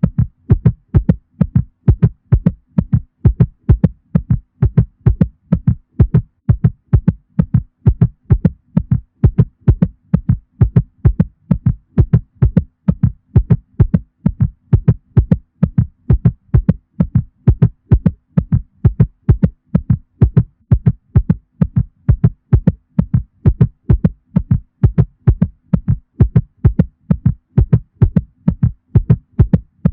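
Cat heartbeat sound effect: a steady, regular heartbeat at about two beats a second, deep and low, with a faint steady hum beneath.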